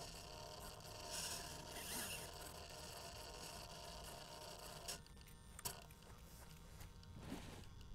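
Faint wind and grass hiss on the onboard camera microphone of a plane lying in tall grass. About five seconds in there are two small clicks close together, and near the end a short scraping rustle.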